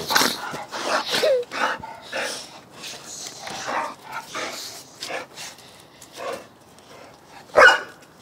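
Dogs play-fighting at close range, snarling and barking. A dense run of loud, short snarls and barks comes in the first two seconds, then sparser, quieter ones, and a single loud bark near the end.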